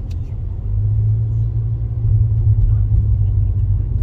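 Low, steady rumble of a car being driven, growing a little louder about a second in.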